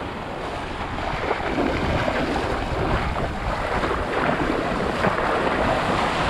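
Ocean surf washing on the beach, with wind buffeting the microphone.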